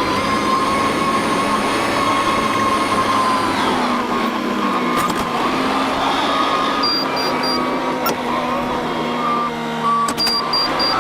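Farm harvest machinery running steadily under load, with a constant mechanical whine held over the engine noise.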